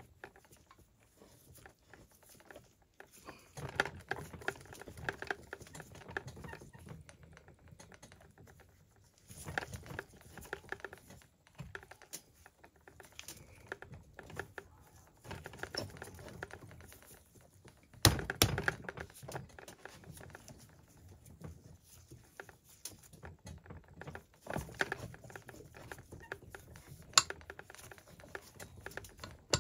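Clicks, taps and rattles of a steel crankcase splitter tool being fitted to a Husqvarna 395 XP chainsaw crankcase and its bolts worked by hand, coming in bursts with short pauses. A sharper knock stands out about 18 seconds in.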